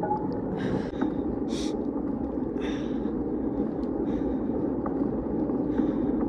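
Steady rushing of wind and road noise on the microphone while riding a bicycle, with a few short, sharp breaths from the rider in the first three seconds.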